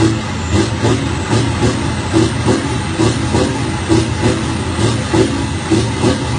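Scania tractor unit's diesel engine idling through tall twin vertical exhaust stacks, a steady idle with an even pulse about two to three times a second.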